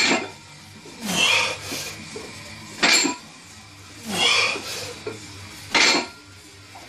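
Deadlift reps with a loaded barbell: the weight plates clank down onto the floor three times, about three seconds apart. Between touchdowns comes a forceful breath or grunt with each lift.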